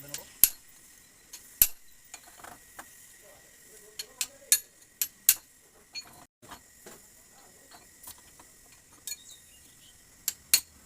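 Irregular sharp metallic clicks and clinks, a dozen or so, as metal tools and parts of a motorcycle rear mono-shock absorber are handled during its disassembly.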